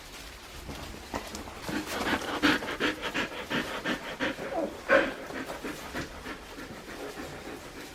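Australian Shepherd puppy panting in quick, rhythmic breaths, loudest in the first half, with a brief higher sound about five seconds in.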